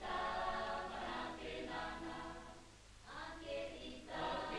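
A choir singing, phrase by phrase with short breaths between.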